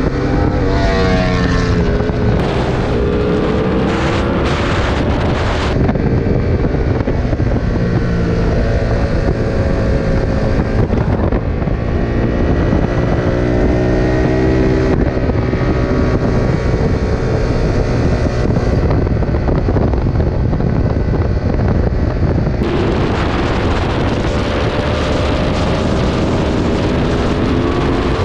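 Aprilia RSV4's V4 engine, heard from the rider's seat, revving up and down as the bike accelerates and backs off through the canyon corners. Heavy wind rush on the microphone covers it in the first few seconds and again from about two-thirds of the way through.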